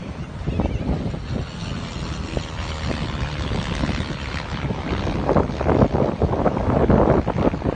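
Strong wind buffeting the microphone: a gusty rumbling noise that grows stronger about halfway through.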